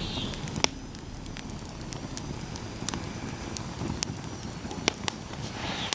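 Irregular sharp snaps and pops, about one or two a second, over a steady low background rumble, with a faint high-pitched sound at the start and again near the end.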